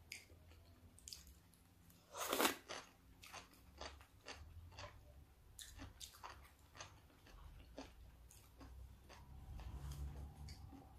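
A person chewing raw salmon sashimi and shredded carrot, with one louder crunchy bite about two seconds in and a run of short wet mouth smacks and clicks after it.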